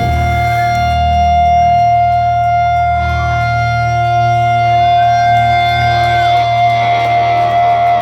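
Live rock band music: long held electric guitar notes with a few pitch bends over a sustained low bass note.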